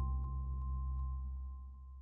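Chill ambient beat fading out at the end of a track: a deep bass, two held tones and a soft tick about three times a second die away steadily.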